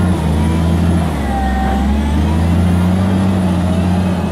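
Caterpillar wheel loader's diesel engine working under load as the bucket digs into a sand pile and lifts a full scoop. The engine note shifts about a second in, and a faint whine dips and rises in pitch over it.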